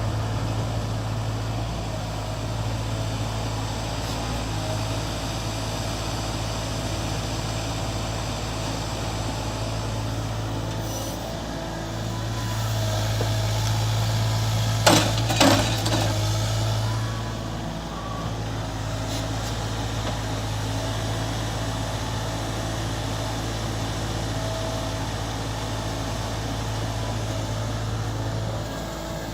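Mini excavator's diesel engine running steadily. It grows louder for several seconds in the middle, as under load, with two or three sharp knocks about halfway through.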